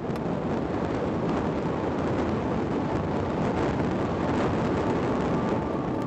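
Steady rush of airflow over a camera riding on a Parrot Disco fixed-wing drone in flight, mixed with the drone's electric pusher motor and propeller running under power. A faint steady whine comes in about halfway through.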